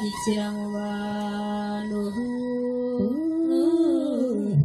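A woman chanting into a microphone in long held, nearly level notes: Rwandan cattle praise chant (amazina y'inka). The pitch steps up a little about two seconds in, rises about a second later and falls away near the end.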